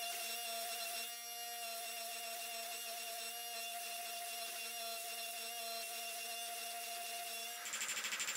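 Hydraulic forging press's motor and pump running with a steady hum as the press squeezes down a red-hot knife tang. Near the end it gives way abruptly to a fast, pulsing mechanical sound.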